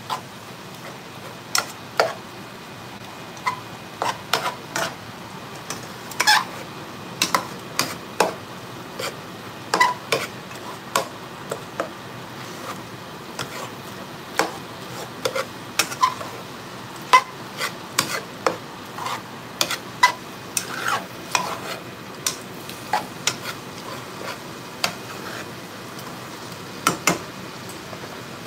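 Ground beef and sliced sausage sizzling in a skillet while a slotted metal spoon stirs them, clinking and scraping against the pan about once a second.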